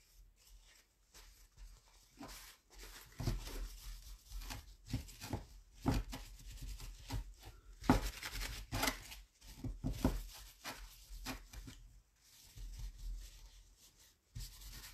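Dry paper towel rubbing over a glazed ceramic piece in irregular scratchy strokes, wiping glaze off the raised surfaces.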